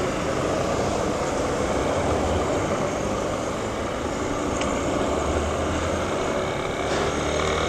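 Motorcycle being ridden at low town speed: its engine running steadily under a wash of wind and road noise at the bike-mounted microphone.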